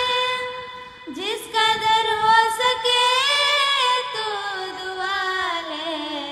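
Two young women singing a Hindi-Urdu song together into microphones, drawing out a long wavering note between lines of the lyric. The pitch slides up about a second in.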